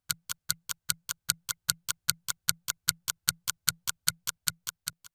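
Rapid, evenly spaced ticking, about five ticks a second, each tick a sharp click over a low thump, like a synthesized clock-tick effect; it swells and then fades away near the end.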